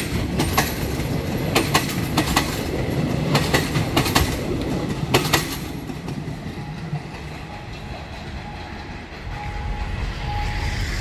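Passenger train coaches rolling past close by, their wheels clacking sharply over rail joints for the first five seconds or so. The rumble then fades as the last coach moves away.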